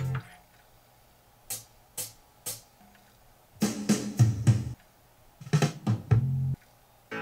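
Music from a CD played through speakers by a Sony CDP-C305 five-disc changer, a couple of seconds of each track: short bursts of music with drums, each cut off abruptly by a silent gap as the player skips on, with a new track starting near the end. The player is reading and playing every track, now running on a replacement spindle motor.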